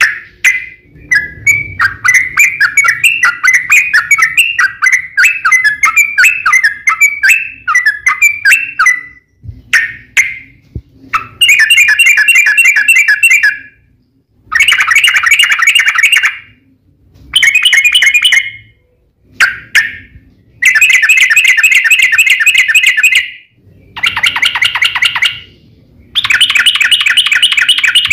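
Yellow-vented bulbul (trucukan) singing: loud, rapid chattering trills. They run almost unbroken for about the first nine seconds, then come in bursts of one to three seconds with short pauses between. This is the long rolling 'ropel' fighting song.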